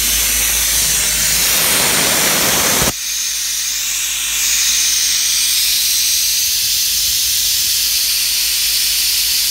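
Nitrogen hissing steadily out of a leak on a Carrier condensing unit's scroll compressor, pressurised to find where the refrigerant escaped: the compressor is leaking. A duller rushing under the hiss cuts off suddenly about three seconds in.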